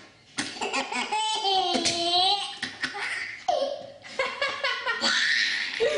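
Baby laughing out loud in high, ringing peals that rise and fall in pitch, with a short breathy burst about five seconds in.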